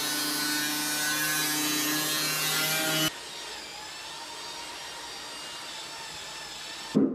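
A construction power tool running steadily and loudly with a high whine, cutting off suddenly about three seconds in, replaced by a quieter steady machine noise.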